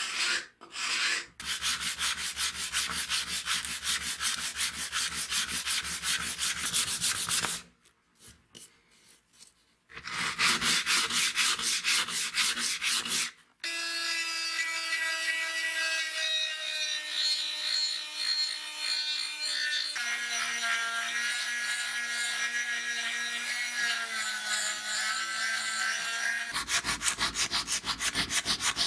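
Rapid, continuous sanding and rubbing on the wooden body of an antique level, heard in short stretches broken by a brief quiet gap. In the middle stretch a steady whine with several overtones takes over, shifting in pitch a few times.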